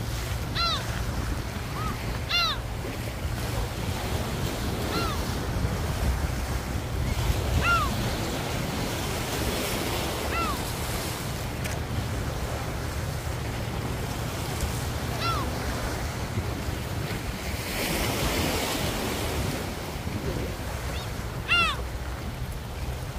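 Sea waves washing on the beach, with wind rumbling on the microphone. Gulls give short arched cries now and then, one at a time, every few seconds.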